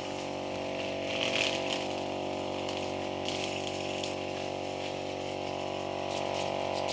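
Petrol string-head brush cutter running at a steady engine speed, with a couple of short hissing bursts about one and three seconds in.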